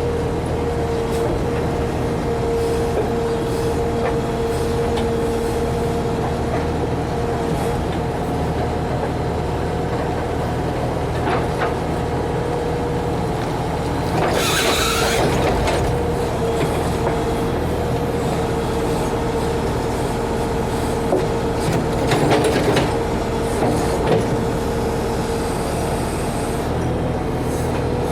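Backhoe's diesel engine running steadily with a constant whine. About halfway through comes a brief rushing burst, followed a few seconds later by a few knocks.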